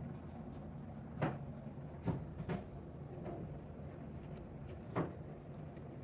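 A few light knocks and clicks, about four, irregularly spaced, from hands handling tubing and parts at the back of a refrigerator, over a low steady hum.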